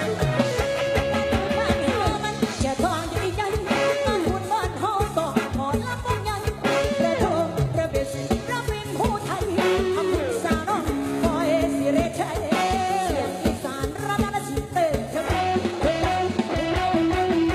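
Lam sing band music played live: electric plucked strings over a steady drum beat, with a voice singing the melody.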